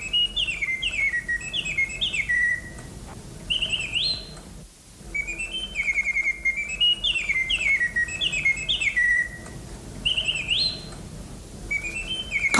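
A nightingale's song: runs of quick, high whistled notes stepping down in pitch, each run closing with a rising slide. The same phrase plays twice, and a third begins near the end.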